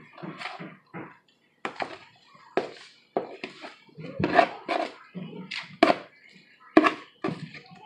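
Spatula scraping and knocking against a plastic mixing bowl as thick scalloped-corn mixture is worked out of it and drops into a glass baking dish: irregular knocks, scrapes and soft plops, one or two a second.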